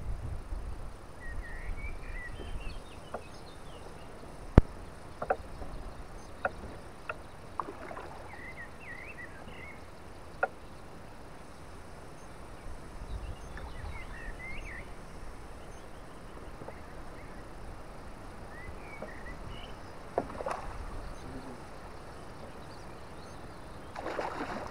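Outdoor river ambience with small birds chirping on and off, a few sharp knocks on the boat and a low rumble in places. Near the end a hooked fish splashes at the surface beside the boat as it is brought to the net.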